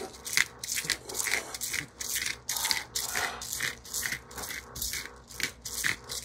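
Pepper and salt being dispensed over raw fish in quick repeated strokes: a rhythmic crunchy rattle, about three to four strokes a second.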